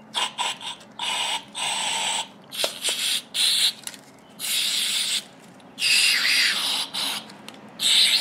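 Aerosol spray-gun cleaner hissing out of its can in a series of short blasts through an extension straw, about eight in all, flushing primer residue out of a stripped-down HVLP spray gun's passages.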